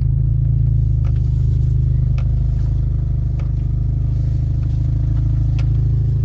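Chevy Malibu driving along, heard from inside the cabin: a steady low engine and road rumble, with a few faint clicks.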